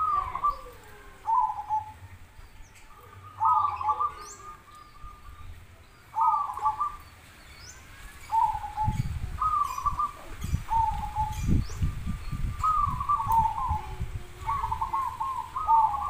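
Zebra doves (perkutut) cooing: short warbled coo phrases repeating every second or two, with faint chirps of other small birds. A low rumble comes in about halfway through and lasts several seconds.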